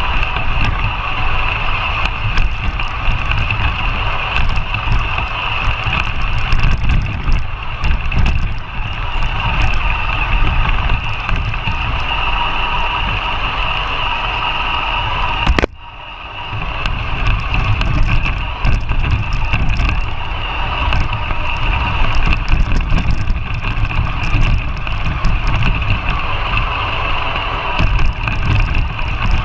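Battery-electric RC 4x4 truck driving through deep snow, heard from a camera mounted on the truck: a steady high motor and gear whine over heavy rumble and rattling from the chassis. About halfway through there is a sharp click, the sound drops briefly, then builds up again.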